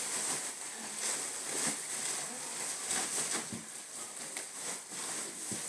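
Black plastic trash bag rustling and crinkling as someone hidden inside it moves, with irregular crackles and a few soft knocks.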